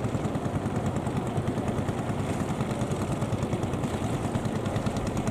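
An engine running steadily with an even, fast beat.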